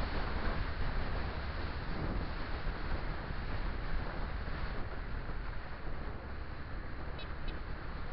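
Wind buffeting the microphone over the rumble of traffic and road noise from a moving motorcycle, easing a little about five seconds in. Near the end come two faint, short, high chirps close together.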